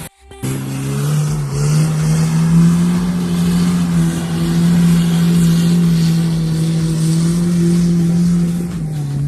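Off-road 4x4's engine running hard at steady revs. The pitch rises a little about a second and a half in, holds, and drops back near the end.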